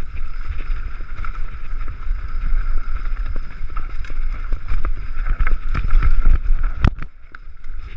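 Mountain bike ridden down a dirt singletrack, heard from the bike: tyres rumbling over the rough ground, the bike rattling and wind buffeting the microphone, with scattered knocks and one sharp knock about seven seconds in.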